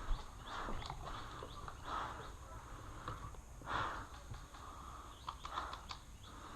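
An airsoft player's footsteps and gear shuffling as he moves, coming as irregular short scuffs, with a few sharp clicks about five seconds in.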